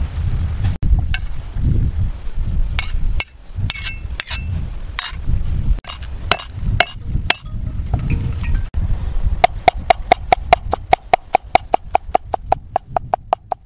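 Cleaver chopping on a wooden chopping board, cutting chillies and garlic: scattered single knocks at first, then from about nine and a half seconds in a fast, even run of chops, about eight a second, each with a short metallic ring. A steady low rumble lies underneath.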